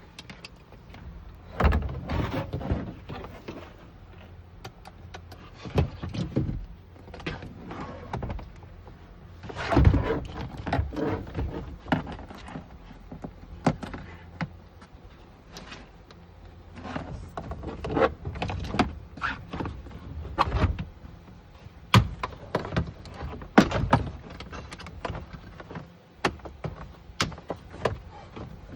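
Irregular clicks, knocks and rattles of hand work on a car door, in clusters with short pauses between.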